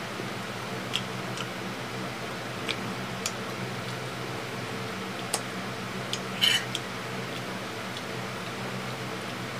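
Quiet eating at a table: scattered light clicks and taps of spoons and fingers on plates and bowls over a steady low hum, with one short, louder crackle about six and a half seconds in.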